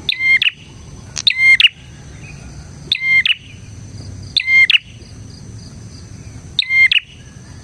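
Prenjak (prinia) singing: five short, loud phrases of rapid sharp chirps, one about every second and a half.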